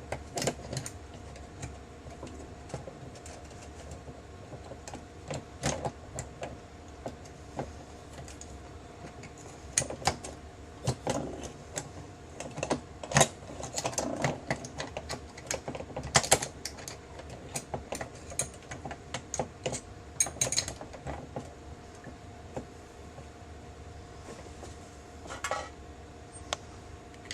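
Irregular metal clicks, taps and clinks as parts of a MEC 600 shotgun-shell reloading press, its final crimp die and punch, are handled and fitted, over a faint steady hum.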